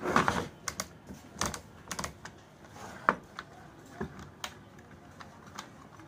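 Irregular clicks and light knocks of plastic parts being handled as a rotary switch is fitted into an opened fan heater's housing. The loudest come right at the start and once about three seconds in, and they thin out after about four and a half seconds.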